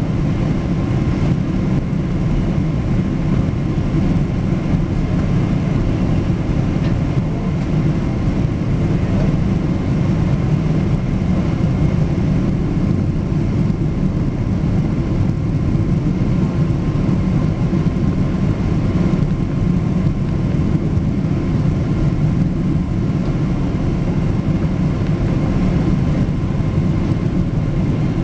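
Inside the cabin of a Boeing 777 taxiing: a steady low rumble from the idling engines and cabin air, with a faint steady high whine above it.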